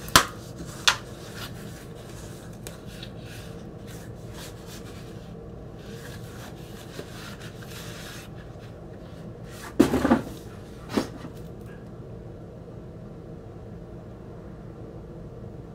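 Cardboard vinyl record mailer being handled and opened: two sharp cardboard snaps near the start, then a louder scraping rustle about ten seconds in, followed by one more short one.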